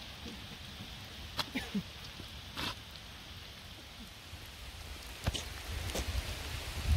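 Heavy rain falling, a steady hiss, broken by a few sharp taps. Wind starts buffeting the microphone with a low rumble near the end.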